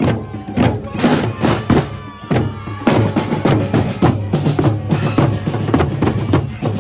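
Procession band's drums and percussion playing a fast, steady beat.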